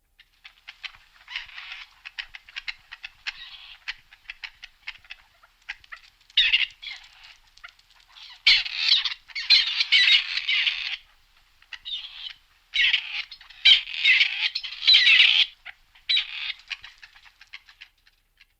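Grey partridge calling: a run of short, dry clicking notes, then louder bouts of harsh, grating calls about six, eight and a half, and thirteen seconds in, trailing off into scattered notes near the end.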